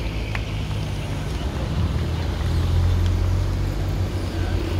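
Race-convoy cars driving slowly up a steep street close by, their engines a steady low rumble that grows louder past the middle.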